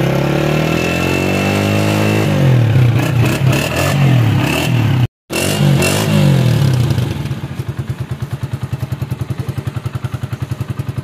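Honda CG125's single-cylinder four-stroke engine being revved several times, its pitch rising and falling. After a brief dropout about five seconds in it revs once more, then settles to an idle with an even, rapid putter.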